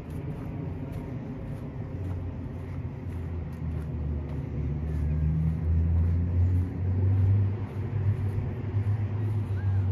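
A motor vehicle passing, its low engine hum growing louder to a peak about two-thirds of the way through, then easing off.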